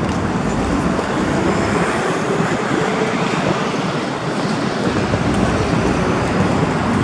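Steady city traffic noise: road traffic running by, heard as an even, unbroken hum.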